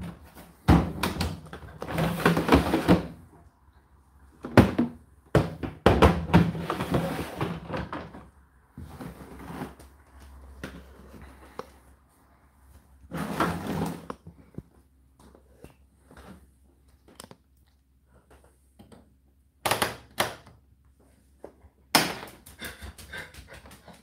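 Irregular thunks and knocks from the cabinet and panels of an Indesit IDC8T3 condenser tumble dryer being handled, some short and some rumbling on for a second or two. Near the end comes a quick run of clicks as the programme timer dial is turned.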